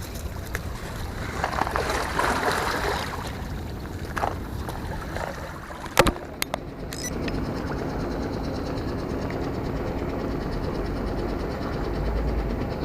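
Outdoor background noise with a faint steady motor hum that grows clearer from about halfway through, and a sharp click about six seconds in.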